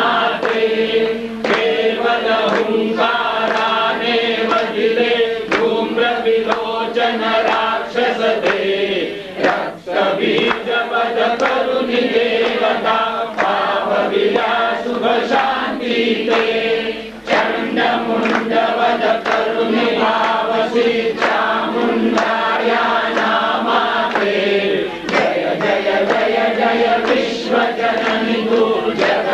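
A congregation chanting a Hindu devotional hymn together, many voices in unison, over a steady run of sharp beats; the singing briefly drops twice between lines.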